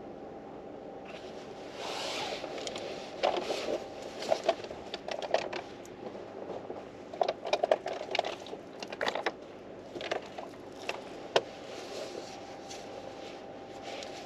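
Irregular rustling and crinkling with small sharp clicks, like paper or light objects being handled up close, over a steady faint hum.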